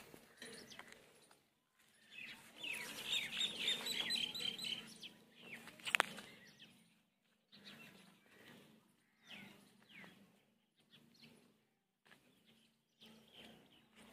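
Birds chirping, with a quick trill of rapidly repeated high chirps a few seconds in and scattered shorter calls after. A single sharp click about six seconds in.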